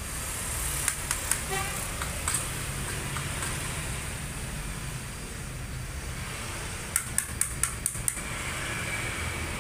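Sharp metallic taps and clicks from hand tools working the oil pan off a Toyota Corolla 1.8 engine, a few about a second in and a quick run of about six near the end, over a steady low hum.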